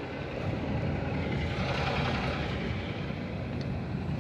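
A car driving along a town street: steady engine and road noise heard from inside the moving car, swelling a little louder in the middle.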